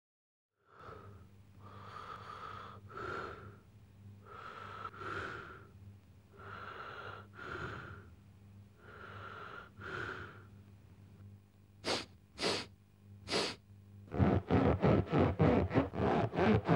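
Cartoon sound of a man breathing through his nose: slow, paired in-and-out breaths, then three short, sharp sniffs, then near the end a fast, loud run of short nasal noises, about four a second.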